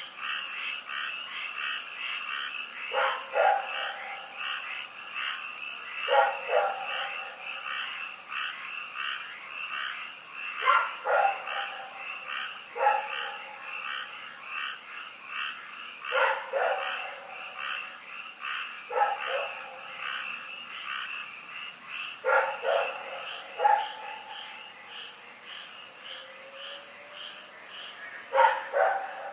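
A dog barking in single and double barks every few seconds over a continuous chorus of croaking frogs. The frog chorus thins out in the last few seconds.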